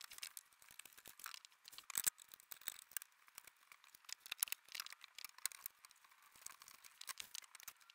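Faint, irregular scraping, tapping and clicking of wooden door parts being handled: a plywood panel and pine rails and stiles slid and fitted together for assembly.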